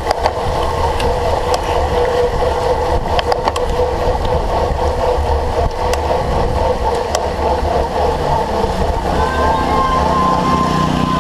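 Riding noise from a cyclocross bike racing over the course: steady wind rumble on the microphone and tyre and drivetrain noise, with scattered sharp clicks and knocks. A thin steady whine shifts up in pitch about nine seconds in.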